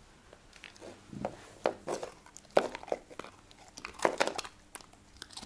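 A Samoyed biting and crunching a hard square biscuit, with a string of irregular crisp crunches. The sharpest comes about two and a half seconds in, and another cluster comes about four seconds in.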